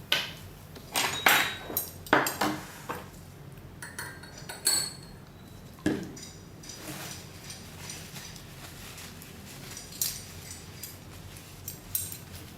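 Stainless steel spoons and glass containers clinking and knocking in scattered taps as utensils are handled and wiped clean.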